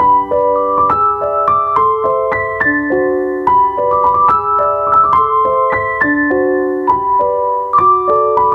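Background music: a piano playing a melody of single notes, stepping up and down in pitch at a steady pace.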